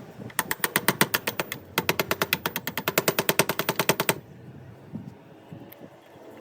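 Rapid, evenly spaced mechanical clicking, about ten sharp strikes a second, in two runs: a short burst, then after a brief pause a longer run of about two seconds that stops suddenly.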